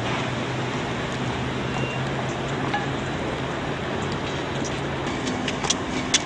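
Steady rushing outdoor background noise with a faint low hum that fades about five seconds in, and a few sharp clicks near the end.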